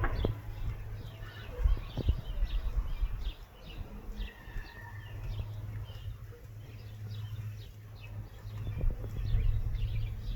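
Small birds chirping continuously, many short high chirps a few each second, with one brief held whistle near the middle. A few low thumps near the start, then from about halfway a steady low buzz of a bee flying close.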